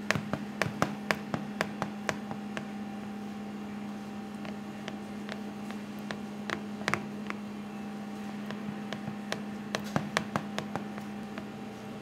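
Fingertips pressing dimples into focaccia dough covered in a water-and-oil glaze in a metal baking tray: many short sharp clicks in three flurries, over a steady low kitchen hum.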